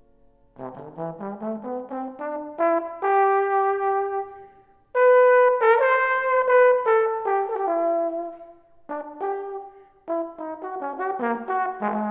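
A trombone plays an unaccompanied jazz solo line: a quick rising run of short notes, then held notes, with the loudest, highest notes in the middle. The phrases are separated by brief silences.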